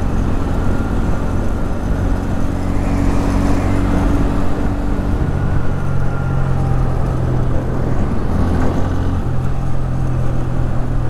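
Royal Enfield Interceptor 650's parallel-twin engine running at road speed under way, with wind rushing past the helmet-mounted camera's microphone. The engine note drops about five seconds in and then holds steady.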